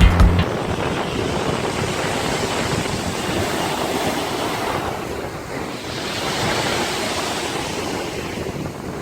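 Sea waves washing onto a pebble beach, a steady rushing surf that swells and ebbs as the waves come in and draw back.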